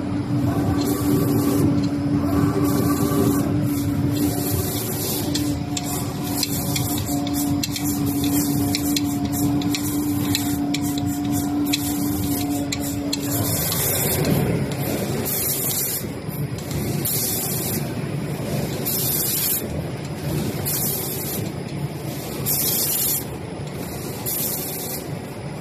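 Automatic spray painting machine's spray guns hissing, the spray switching on and off roughly once a second as the heads pass over the panels. A steady machine hum runs under it and stops about halfway through.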